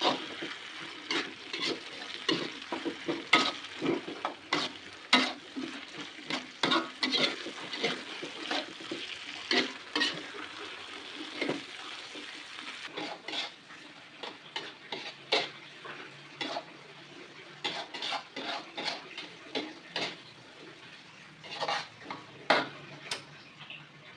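Food sizzling in a frying pan while a spatula stirs it, with many irregular clinks and scrapes of the utensil against the pan.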